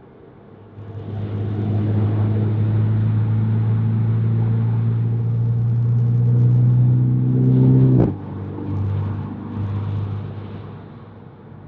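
Mercedes C300's turbocharged four-cylinder engine with aftermarket MagnaFlow mufflers and an ECU tune, heard from inside the car: it comes on the throttle about a second in and pulls with slowly rising revs for about seven seconds. The sound then drops off sharply and settles into a lower, varying note.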